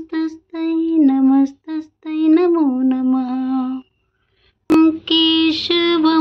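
A woman singing a Hindu devotional chant unaccompanied, in held notes with short breaks; her singing stops a little before four seconds in, and after a second of silence a click brings it back at a similar pitch.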